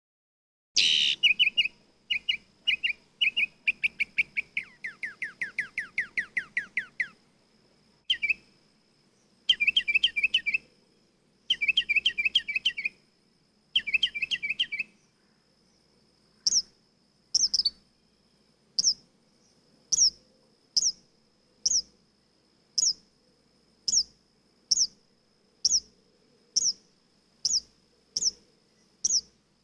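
Mockingbird singing: short bursts of quick high notes, each phrase repeated several times, with a run of falling sweeps early on. From about halfway it switches to a single sharp chirp repeated roughly once a second.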